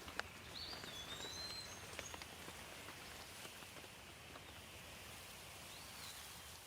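Rain falling softly in a steady patter with scattered drop ticks. A bird whistles a few thin, gliding notes in the first two seconds and one short arched note about six seconds in.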